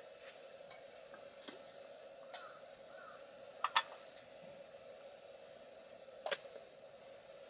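Light clinks and taps of tableware, a few short sharp knocks at irregular intervals. The loudest is a quick double clink a little under four seconds in, over a steady faint hum.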